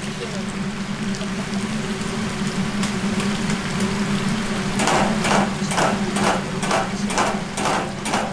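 Chicken deep-frying in a large round pot of hot oil: a steady sizzle over a low hum. From about halfway through comes a quick run of about eight metal knocks as the wire skimmer is worked against the fryer while lifting the chicken out.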